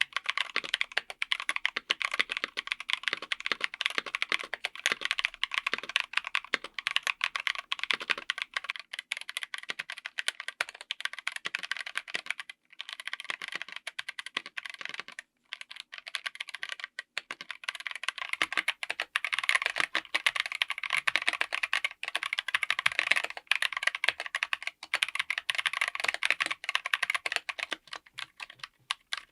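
Fast, continuous typing on a mechanical keyboard fitted with tactile switches: a dense stream of keystroke clicks, with two brief pauses about halfway through.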